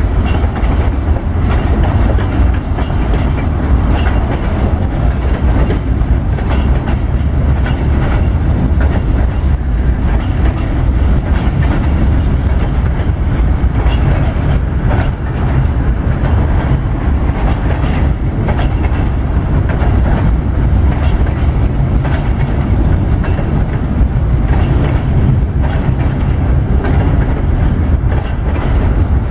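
Freight train boxcars rolling past in a steady, loud rumble, with the clicking of wheels over the rail joints.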